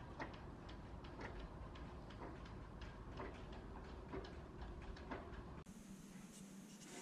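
Faint, regular ticking, about one sharp tick a second, over a low hum; the background sound changes abruptly about two-thirds of the way through.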